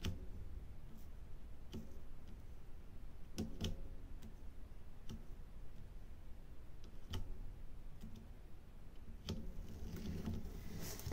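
Small, irregular plastic clicks and taps, roughly one a second, of a diamond-painting drill pen picking up resin drills from a plastic tray and pressing them onto the adhesive canvas.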